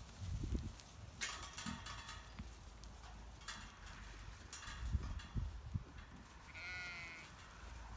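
Charollais ram lamb giving one short bleat near the end, over soft shuffling and rustling as the flock moves about in the pen.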